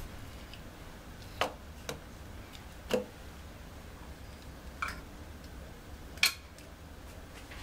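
Light taps and clicks of a knife and peeled tomato pieces against a plastic blender cup: five short knocks spread a second or more apart, the loudest near the end.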